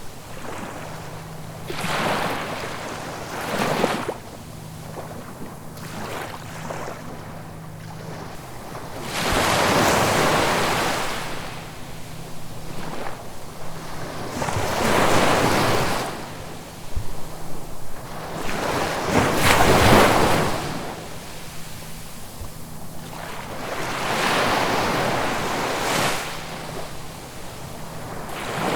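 Ocean waves breaking and washing up the shore, one surge swelling and fading every few seconds, the loudest about ten, fifteen and twenty seconds in.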